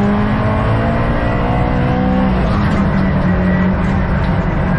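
Subaru WRX STI's turbocharged EJ20 flat-four engine, heard from inside the cabin, pulling up through the revs under hard acceleration, then easing off about two seconds in.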